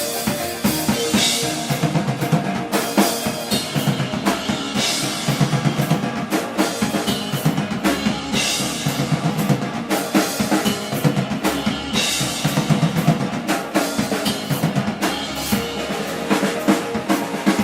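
Live band playing loud music driven by a drum kit: fast, dense kick and snare hits, with a crash cymbal about every three and a half seconds over sustained instrument tones.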